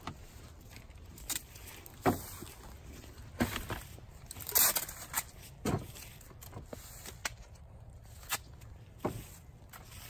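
Footsteps on dry fallen leaves: irregular crunches and clicks a second or so apart, the loudest about halfway through.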